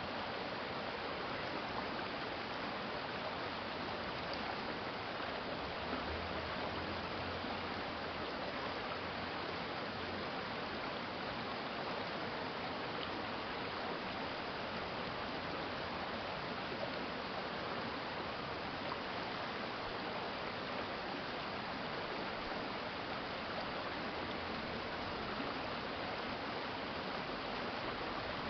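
Water of a shallow city stream flowing steadily, an even rushing burble. A faint low hum rises under it twice.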